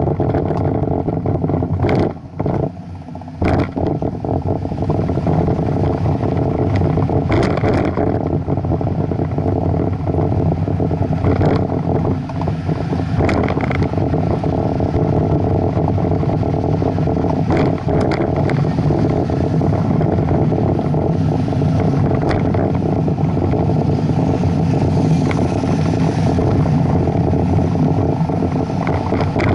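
Steady rumble of a bicycle ride on a paved path: wind buffeting the microphone and tyres running over the surface, with a few knocks as the bike goes over bumps. It drops briefly about two seconds in.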